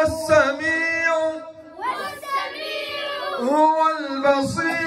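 Children's voices singing a song, with long held notes.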